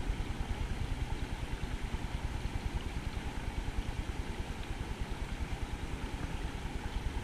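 Wind buffeting the microphone: a steady low rumble with a fast, uneven flutter.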